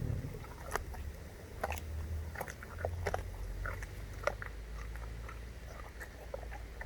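Tiger eating: biting and chewing its food, a string of short wet crunches and clicks, most of them in the first four seconds.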